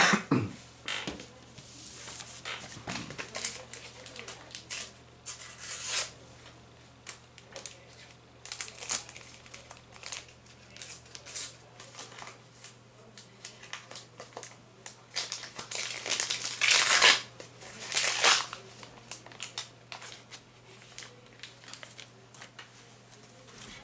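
Paper stickers and sticker-album pages being handled: a run of short rustles, crinkles and scrapes, with the longest and loudest rustling about two-thirds of the way through.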